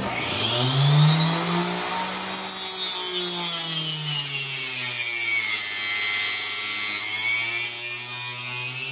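Small benchtop hobby table saw spinning up, its whine rising in the first second, then running while a thin strip of wood is fed through the blade, the pitch sagging and recovering under the cut.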